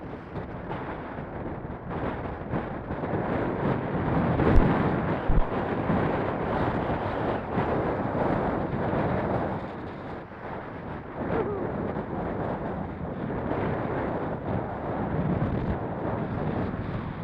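Strong wind buffeting the microphone in a steady, uneven rush that swells and fades.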